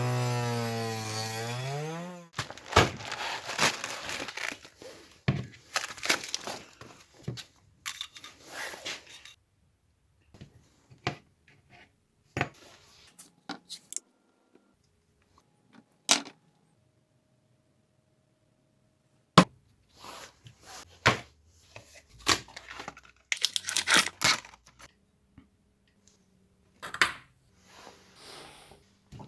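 A small electric motor hums for about two seconds, its pitch rising and then dropping away as it stops. It is followed by irregular knocks, clicks and rustling of parts being handled and worked on a bench.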